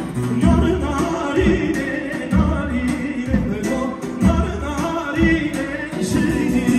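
Live Kurdish halay dance music: a singer over an amplified band, with a heavy drum beat about once a second.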